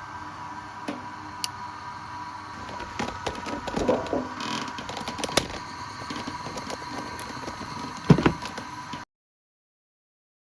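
Clicks, knocks and scraping, like something being handled, over a steady high-pitched tone; the sound cuts off abruptly into silence about nine seconds in.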